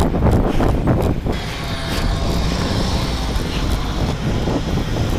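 Quick thumps of brisk walking for about the first second, then the steady hum of a large vehicle's engine running close by, over city street traffic.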